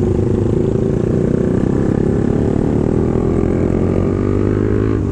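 Suzuki GSX-R150's single-cylinder engine running while the motorcycle is ridden, its pitch rising slowly over the last couple of seconds as the bike gathers speed.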